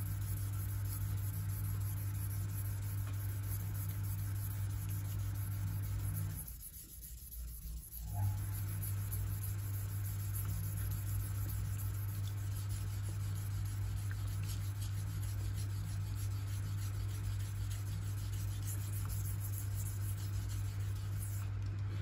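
Victorinox Huntsman pocket-knife blade being stroked back and forth across a 3000-grit sharpening stone, a soft rasping scrape of steel on stone. Under it runs a steady low hum that drops out for about two seconds a third of the way in.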